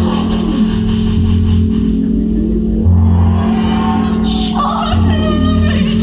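Live band music with a woman singing into a microphone over steady low bass notes; her voice drops out for a couple of seconds in the middle, then comes back.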